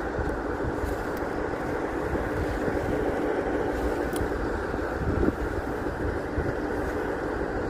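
Hull Trains Class 802 bi-mode train departing under diesel power: a steady drone of its underfloor engines with a constant hum as it pulls out.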